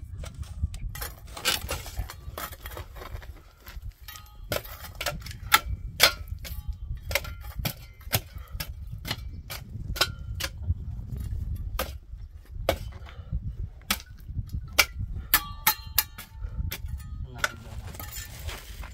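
Pickaxe and shovel digging in rocky soil: many sharp, irregular strikes of metal tool on stone and earth, a few giving a short metallic ring.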